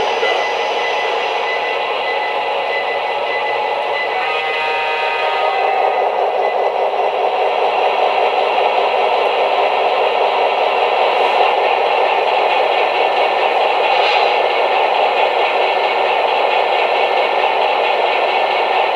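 O-gauge model trains running on three-rail track: a steady rolling clatter of wheels and motors. A brief pitched sound rides over it about four seconds in.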